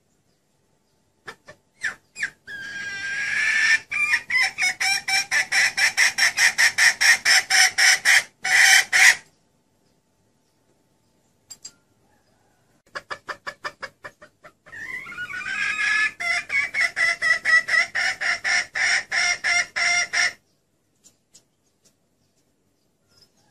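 Red junglefowl hen calling, played as a lure call: two long runs of rapid clucks, about four a second, each opening with a longer note that rises in pitch.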